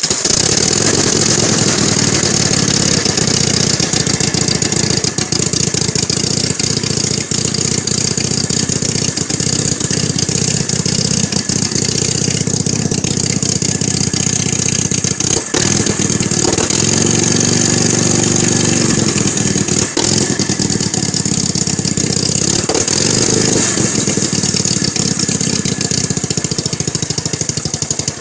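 1940 Harley-Davidson WLA 45 flathead V-twin running loud and steady on its first start after sitting 12 years, with a freshly rebuilt Linkert carburettor. The revs rise and fall briefly a little past the middle, and the engine stops suddenly at the end.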